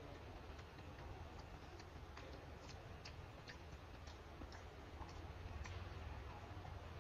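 Faint, irregular clicks and ticks, about two a second, over a low steady hum.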